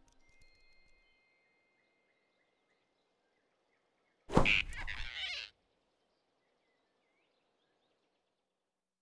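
Faint forest ambience with a few thin high whistling tones near the start. About four seconds in comes a sudden loud whoosh and scuffle lasting just over a second: a cartoon snatch sound effect as a big rabbit grabs a flying squirrel.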